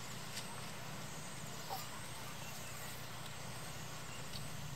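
Steady, faint outdoor background noise with a low constant hum, broken by a few small clicks.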